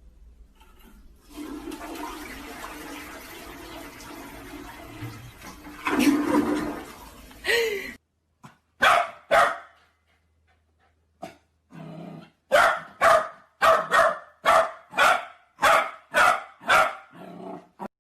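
A rushing noise like running water for about six seconds that stops abruptly, then a dog barking: a couple of sharp barks, a pause, and then a quick run of about ten barks.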